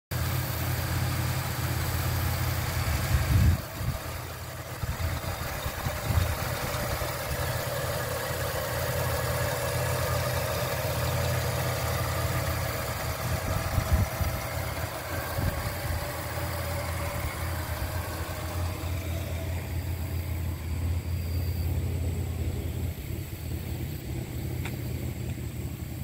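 A 1999 Oldsmobile Cutlass's 3.1-litre V6 idles with a steady low hum. There is one brief louder bump about three seconds in, and the sound turns duller about two-thirds of the way through.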